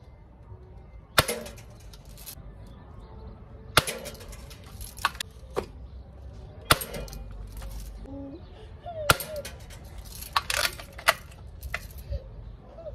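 Mendoza Vaquero lever-action air rifle firing pellets at metal knockdown duck targets: about five sharp shots a couple of seconds apart, with smaller metallic clicks between them as the lever is worked and pellets strike the steel.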